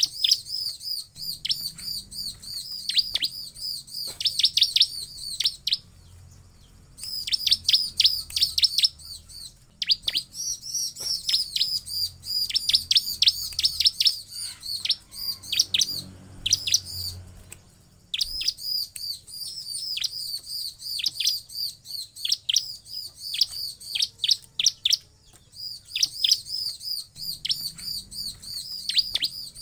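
Bar-winged prinia (ciblek) calling: bouts of rapid, high chirps, several a second, each sweeping down in pitch, broken by short pauses.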